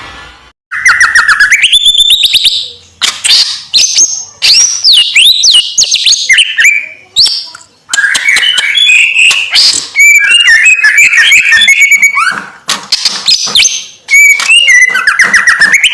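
Songbird singing loud, rapid, varied phrases of whistled and chattering notes, broken by short pauses; the song starts just under a second in.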